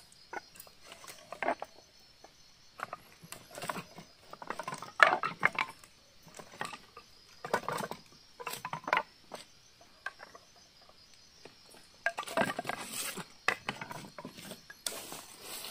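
Dry wooden sticks knocking and clattering against each other as firewood is picked up from a pile on dry leaf litter, in irregular handfuls. A steady high insect drone carries on behind.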